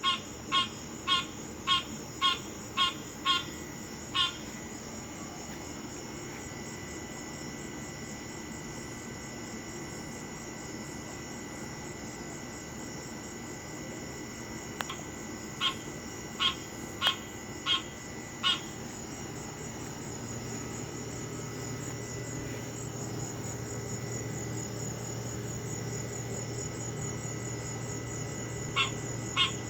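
Clangy, honking calls from an unidentified animal, each short and repeated about twice a second, in three bouts: at the start, around the middle, and again at the end. A steady high chirping of insects runs underneath.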